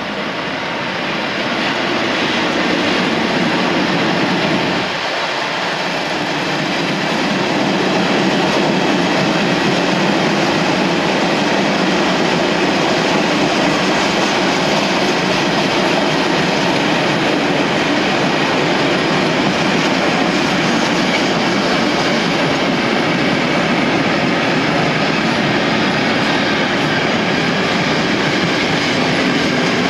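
Freight train of tank wagons and open wagons, hauled by a ČD Cargo class 363 electric locomotive, rolling past at steady speed: a continuous rumble and clatter of wheels on rail. The noise dips briefly about five seconds in, then goes on steadily.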